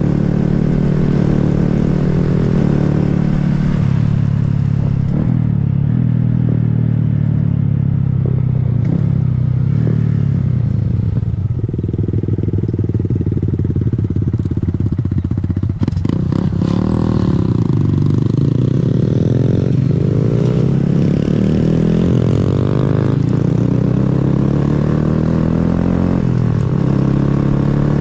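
Honda Grom's 125 cc single-cylinder motorcycle engine running on the move. Its note is steady at first, then rises and falls several times in the second half as the throttle is worked.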